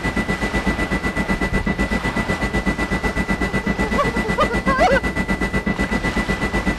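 A rapid, even pulsing of about eight beats a second under a steady high-pitched tone. A brief wavering wail rises and falls about four to five seconds in.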